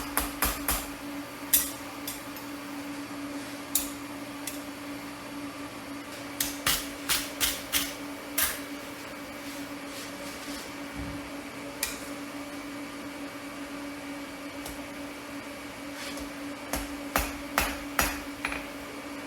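Hammer blows on steel at an anvil while forging, struck in short runs of quick blows with pauses between. A steady hum runs underneath.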